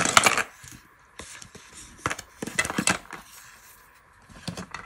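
Small hard plastic and metal accessories clicking and clattering in several short bouts as they are handled and put back into a cardboard box.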